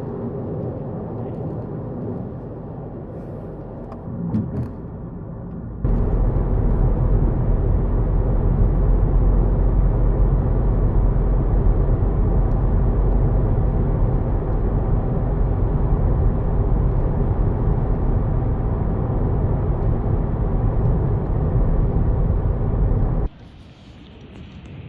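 Volkswagen Golf GTI mk7.5 driving: a steady engine and road drone. It steps up suddenly to a loud, low drone about six seconds in and drops abruptly to a quieter hiss near the end.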